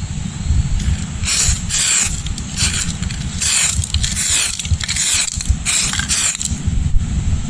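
Aerosol can of weld-through primer sprayed onto a car body panel in about six short hissing bursts.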